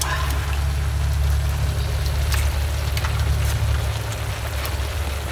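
A loud, steady low rumble over a faint hiss from mushrooms and moringa leaves simmering in a steel wok over a wood fire, with a few light crackles.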